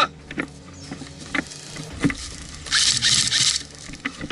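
Footsteps and gear rubbing against a body-worn camera as a player sets off at a run, with scattered knocks and a loud burst of rustling noise lasting under a second, about three seconds in.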